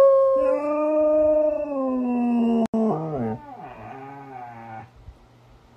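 Siberian husky howling and "talking": a long howl held on a steady pitch, with a lower tone joining it. About two and a half seconds in the pitch slides down, and the howl breaks into a quieter, wavering moan that stops about five seconds in.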